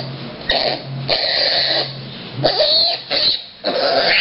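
A micro piglet giving a series of short, raspy cries, about six in four seconds, some brief and one lasting most of a second.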